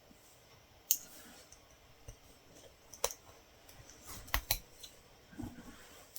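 Light, sharp clicks from latch hooking work with the hook tool and yarn: one about a second in, another at about three seconds, and a quick pair a little after four seconds, followed by a soft low knock.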